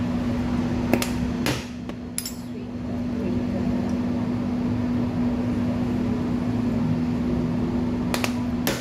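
A running air fryer gives a steady electric hum throughout. Over it come sharp clicks of plastic spice shakers being handled and opened, three in the first couple of seconds and two near the end.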